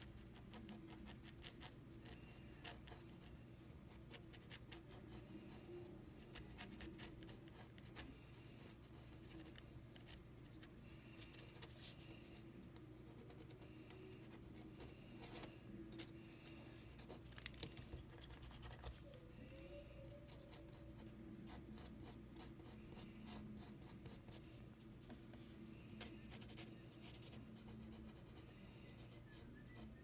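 Pencil scratching faintly on paper in runs of quick, short shading strokes.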